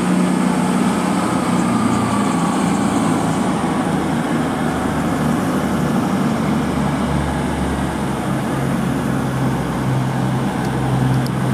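CrossCountry Class 220 Voyager diesel multiple unit departing, its underfloor Cummins diesel engines running under power as the train pulls away. A steady diesel drone whose low hum grows stronger in the second half.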